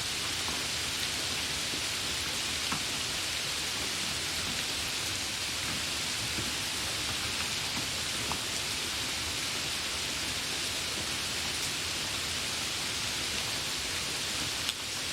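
Light rain falling steadily: an even hiss of rain with a few separate drop ticks now and then.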